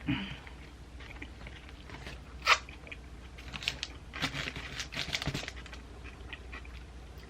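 Close-miked chewing and crunching of a Subway sandwich with lettuce, pickle and green pepper, in scattered moist clicks, with one loud sharp crunch about two and a half seconds in and a busier run of chewing clicks soon after.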